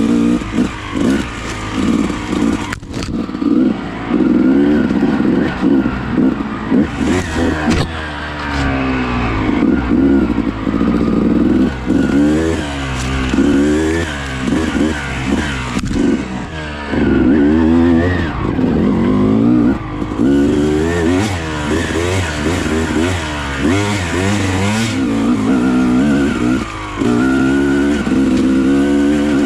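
Dirt bike engine revving up and down over and over as the rider works the throttle along a trail, the pitch rising and falling every second or two.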